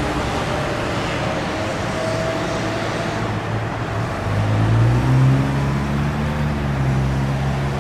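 Seagrave Marauder II fire engine driving off up the road on an emergency response, its diesel engine running under road and traffic noise. A deeper, steady engine drone comes in about four seconds in.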